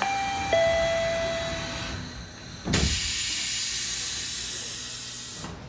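Monorail car's doors closing: a door-warning chime holds one tone, steps down to a slightly lower tone about half a second in and stops near two seconds, then the doors shut with a thump a little under three seconds in and a long hiss of air fades away.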